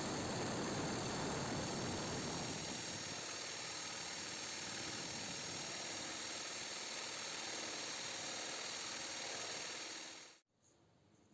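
An electric power tool's motor running steadily with a high whine, its lower rumble easing off about two and a half seconds in. The sound cuts off abruptly near the end.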